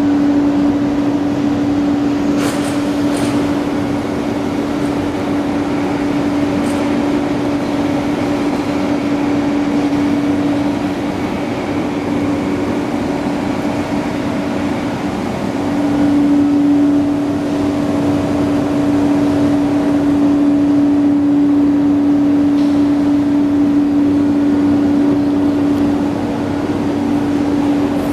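Steady drone of heavy machinery in a steel tube-drawing plant: an electric-drive hum with one strong, even tone. The tone fades somewhat partway through and returns louder about halfway, with a few sharp metallic clicks early on.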